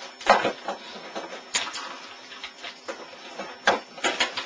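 Four sharp knocks or taps, unevenly spaced: the first comes just after the start, then about a second later, then two close together near the end.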